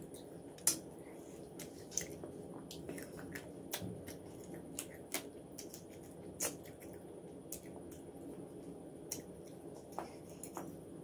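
A person chewing and lip-smacking close to the microphone while eating by hand, with wet squishy mouth sounds and sharp irregular clicks, the loudest under a second in.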